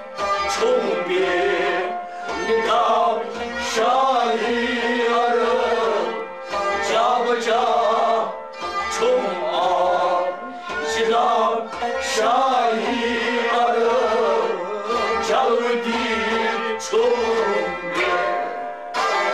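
Kashmiri Sufi ensemble playing: harmonium, sarangi and rabab carry a wavering melody over a goblet drum beating a steady rhythm of about two strokes a second.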